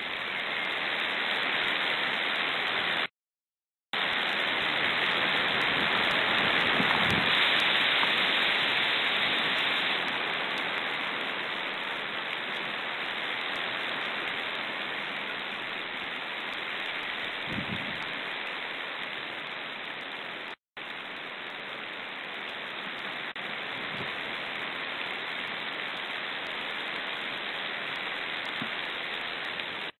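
Strong, steady hiss of wind overloading the nest-cam microphone, with no bird calls standing out. The sound cuts out completely for about a second, three seconds in, and again for an instant about twenty seconds in.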